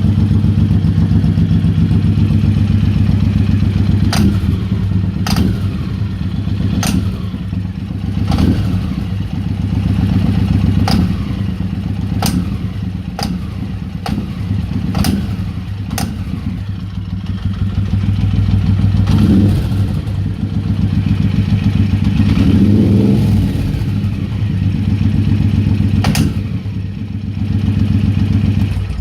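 Suzuki Boulevard M109R V-twin engine running, with about a dozen sharp knocks, most in the first half and one more near the end, heard as the throttle is snapped open: a knocking fault on sharp throttle opening.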